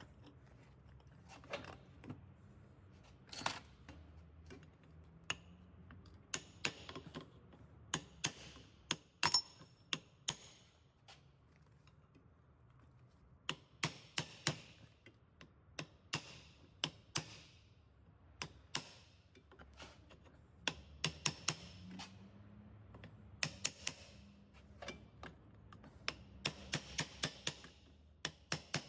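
Irregular light clicks and knocks, some in quick runs of several, a few ringing briefly, over a faint low hum: hand tools and parts being handled during a car repair.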